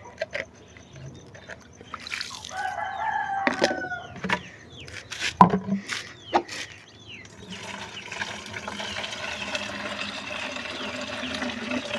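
A rooster gives a short crow about two seconds in, among scattered knocks and clatter. From about halfway there is a steady rush of water being poured.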